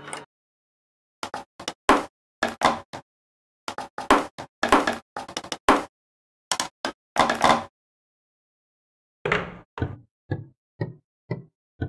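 Short, sharp knocks and thuds from household objects, edited into an irregular pattern with stretches of dead silence between them. Near the end, a run of about six knocks grows shorter and fainter.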